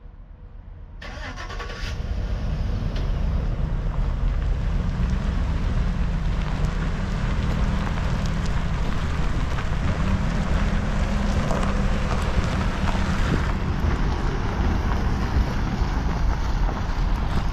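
GMC Savana box truck engine starting about a second in, then idling steadily.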